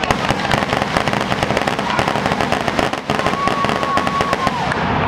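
Fireworks display with a dense, rapid crackle of small pops throughout. From about three seconds in, a steady high whistle holds for over a second and drops away at its end.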